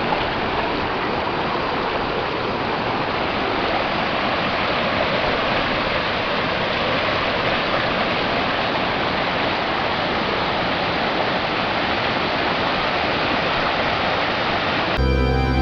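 Mountain stream water rushing steadily over rocks in a valley. Background music comes back in near the end.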